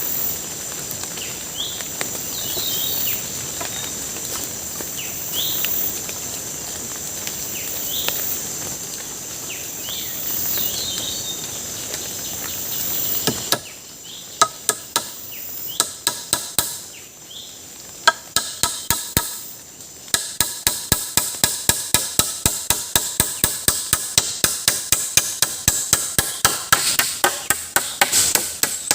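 Forest ambience with a steady insect drone and scattered bird chirps. About halfway through it gives way to rapid, evenly spaced knocks of a tool striking wood, about three a second.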